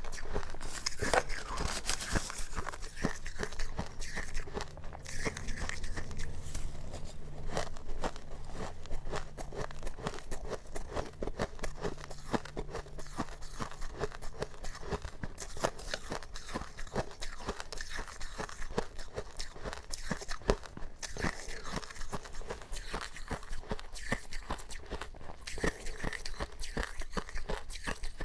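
Powdery freezer-frost ice being bitten and chewed close to the microphone: a dense, continuous run of crisp crunches and crackles.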